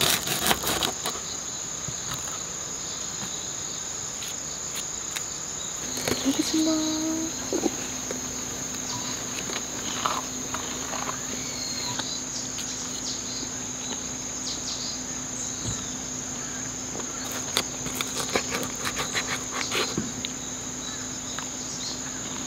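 Insects chirring in a steady, unbroken high-pitched drone. Now and then a fork and knife clink against a wooden plate, in small clusters about six seconds in and again near the end.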